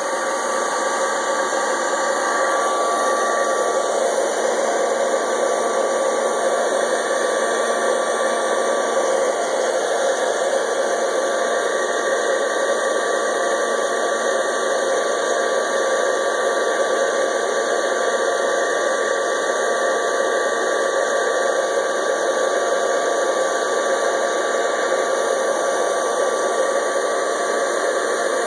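Hot-air popcorn popper running steadily, its fan blowing heated air through green coffee beans, with a faint motor hum under the noise. The roast is still early, before first crack, so no cracks are heard.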